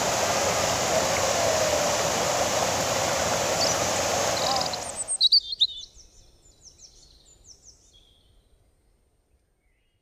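Steady rush of a waterfall and its rocky stream, which cuts off suddenly about five seconds in. A string of short, high, falling bird chirps follows and fades away into silence.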